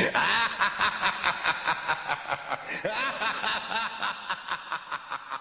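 A person laughing in a long, rhythmic run of 'ha' pulses, about four a second, slowly fading away.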